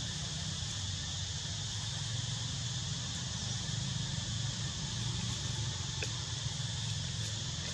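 Steady chorus of insects with a low, even rumble underneath; a single faint click about six seconds in.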